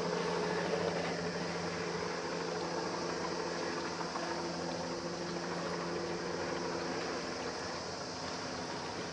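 Steady drone of ship engines over the water, a few low humming tones held over an even hiss.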